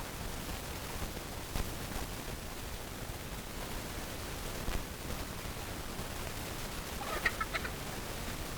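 A chicken giving a short run of quick clucks about seven seconds in, over a steady background hiss with a couple of faint knocks.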